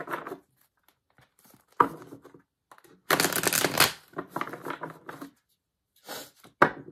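A deck of tarot cards shuffled by hand, the cards riffling and slapping in several short bursts with pauses between. The longest and loudest burst comes about three seconds in.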